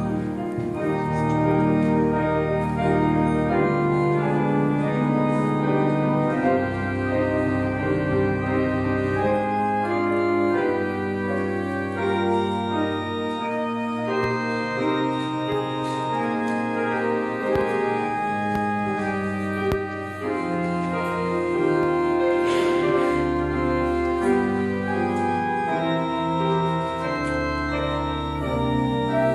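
Pipe organ and piano playing a hymn arrangement together: the organ holds sustained chords over deep bass notes that change every few seconds, while the piano plays moving lines above.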